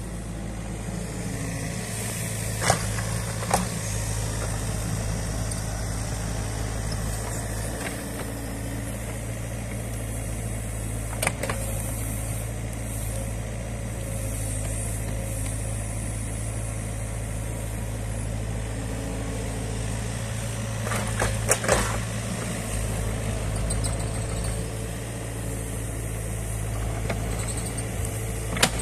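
New Holland Kobelco E50.2 mini excavator's diesel engine running steadily under digging load. Sharp knocks from the bucket come a few times, with a quick cluster just past the middle.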